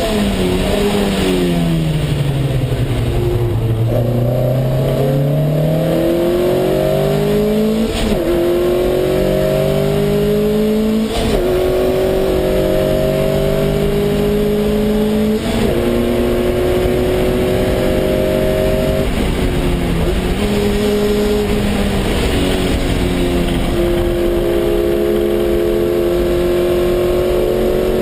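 Lotus Cup race car's engine heard from inside the cockpit: revs fall as the car slows for about the first three seconds, then it accelerates hard through the gears, the pitch climbing and dropping at each upshift roughly every three to four seconds.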